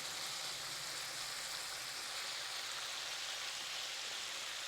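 Chicken frying in a pan, a steady sizzling hiss of hot oil.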